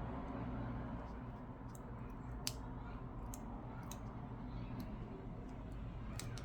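Faint, scattered small clicks and taps of parts and tools being handled as the LCD cable is worked into its connector inside an iPad 2, over a steady low hum.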